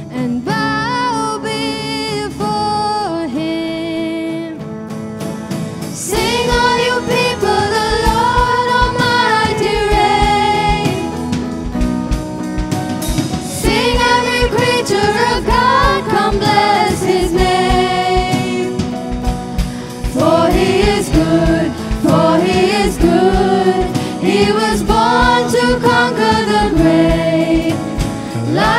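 Teenage vocal group singing a contemporary Christmas song with instrumental accompaniment; a steady drum beat comes in about six seconds in.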